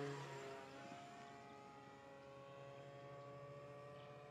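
The 160-watt outrunner electric motor and propeller of a 14 oz radio-controlled model airplane, a pitched whine. It is loudest at the start as the plane passes overhead, drops in pitch, then goes on as a quieter, steadier drone as the plane flies off.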